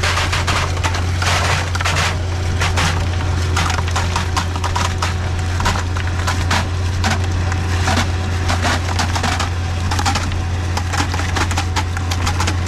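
Concrete pumper truck running with a steady low hum while wet concrete pours from the boom hose into a form, with dense, irregular crackling and spattering.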